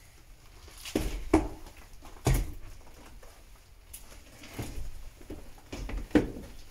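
Footsteps walking on a hard floor: about half a dozen uneven thuds with some scuffing between them, the heaviest about a second and two seconds in.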